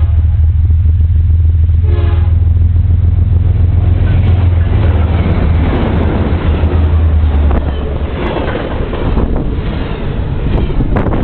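A BNSF GE ES44DC diesel locomotive passes at speed, giving a short horn toot about two seconds in, with a heavy low engine rumble. The rumble drops away about seven seconds in, leaving the rattle and clatter of double-stack intermodal well cars rolling by.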